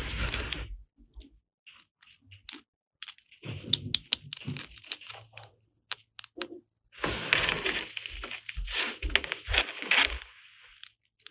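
Hands handling plastic toy kitchen parts and packaging: irregular bursts of rustling and crinkling, mixed with sharp plastic clicks and taps.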